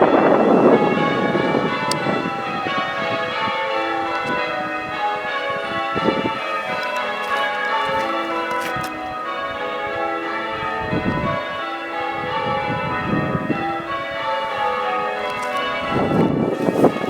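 Change ringing on the front six bells of an eight-bell church ring: the bells strike one after another in a continuous run of changes. Loud rumbling noise over the bells near the start and again near the end.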